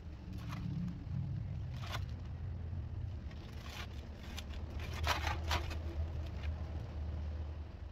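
Large black plastic trash bag being shaken open and handled, crinkling in several short bursts, loudest about five seconds in, over a low steady rumble.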